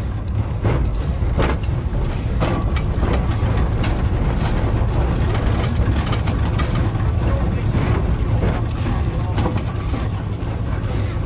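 Puffing Billy replica steam locomotive and its wagon running along the track: a steady low rumble with repeated clanks and knocks from the running gear, wheels and rail joints.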